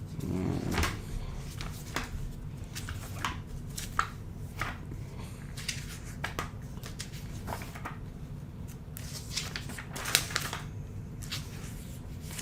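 Lego plastic pieces being handled and pressed together: irregular small clicks and rustles, with sharper clicks about four and ten seconds in, over a low steady hum.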